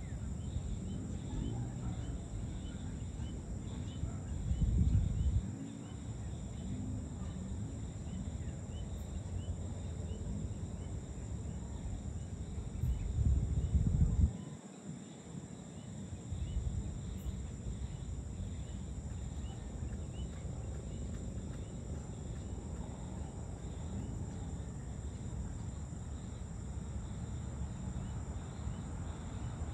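Evening outdoor ambience of insects trilling steadily, with a faint chirp repeating at an even pace. Underneath runs a low rumble that swells twice, about five and fourteen seconds in, the loudest sounds in the stretch.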